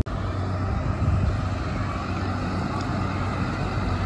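Diesel engine of a MAN fire engine running as the truck drives along, a steady low hum.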